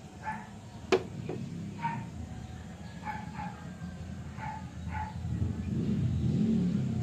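A dog barking off in the background, about six short barks spread a second or so apart. A sharp click about a second in is the loudest sound, and a low rumble swells near the end.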